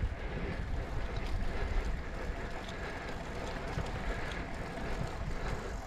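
Steady wind noise on the microphone while riding a road bike uphill: a low rumble under a fainter hiss.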